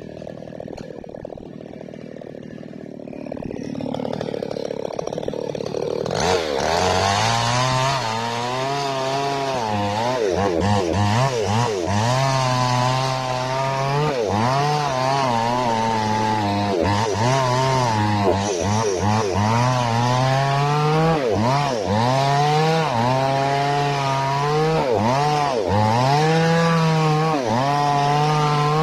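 Falcon mini chainsaw engine running while it warms up. It is fainter and without a clear pitch for about the first six seconds, then runs clearly with its pitch rising and falling again and again as the revs go up and down.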